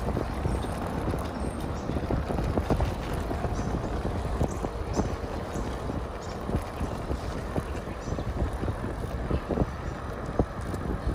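Bicycle riding along an asphalt street: a steady low wind rumble on the microphone, with irregular light clicks and rattles from the bike over the road surface.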